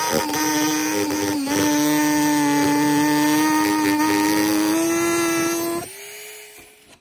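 A high-speed rotary tool with a small cutoff wheel cutting through the CitiCar's plastic body panel: a steady high-pitched motor whine that dips in pitch briefly about one and a half seconds in. Near the end it drops sharply in level and fades out.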